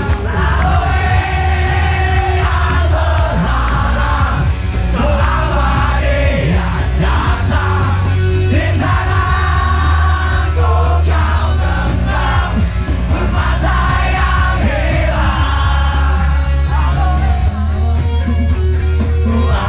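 Rock band playing live through a PA: a male singer over electric guitar, bass guitar and drums, with a heavy low end.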